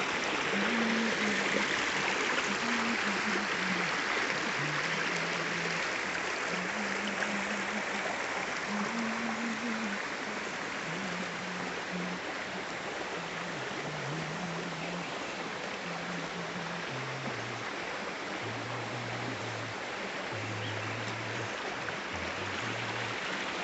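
Waterfall water rushing in a steady, even roar. Under it runs a slow, low-pitched melody of held notes stepping up and down.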